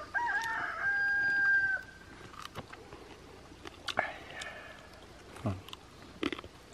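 A rooster crowing once: a short wavering start, then one long held note that stops just under two seconds in.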